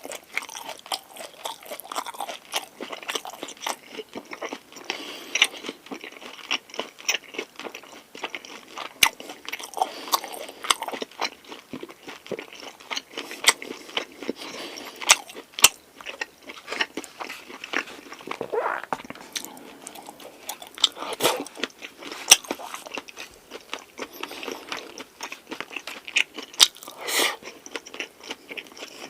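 Close-miked eating of a pork galbi convenience-store lunchbox: chewing with many irregular sharp crunches and mouth clicks.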